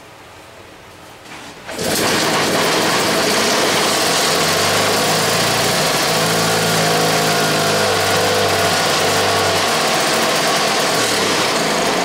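Antique single-cylinder two-stroke engine on a makeshift modern carburetor, rope-started, catching about two seconds in and then running loudly. Its speed shifts a few times as the carburetor is worked.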